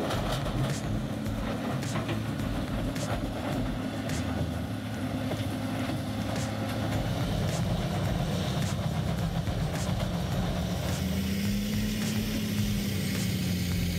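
Bandit Beast 4680 horizontal grinder's diesel engine running steadily under load, its pitch rising a little about eleven seconds in, with scattered sharp cracks and knocks from the wood being ground.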